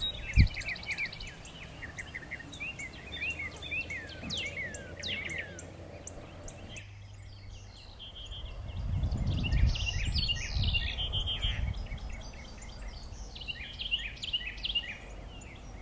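Birds chirping and calling repeatedly in short notes and quick downward sweeps. A single low thump about half a second in, and a low rumble for a few seconds in the middle.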